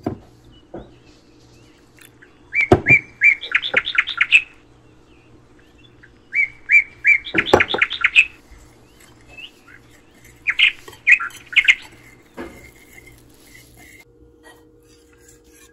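A bird chirping in three quick runs of short repeated notes, over a faint steady hum, with a few sharp knocks of a wire whisk against the bowl.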